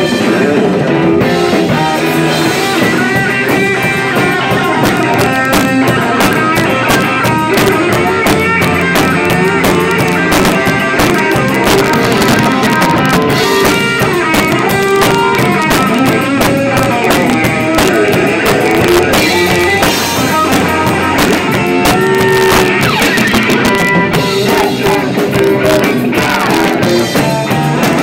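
Live punk rock band playing at full volume: electric guitar, bass guitar and a drum kit with cymbals, going steadily without a break.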